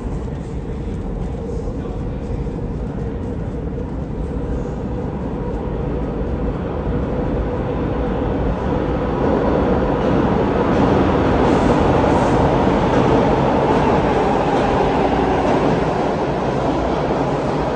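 Toronto TTC T-1 subway train arriving at an underground station platform: the rumble of the train in the tunnel grows louder from about eight seconds in as it enters the station, is loudest as it runs along the platform, and eases a little near the end.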